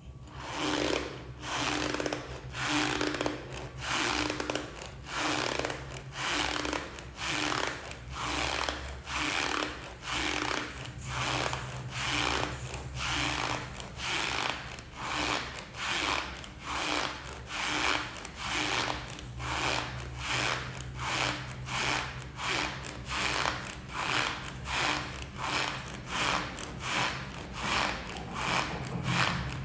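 Leftover lumps of starch being squeezed and crushed by hand in a steady rhythm, a little over one squeaky crunch a second.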